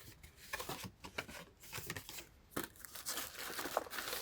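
Packaging being handled: paper and plastic rustling and crinkling with small clicks and taps, in irregular short bursts that grow busier in the second half.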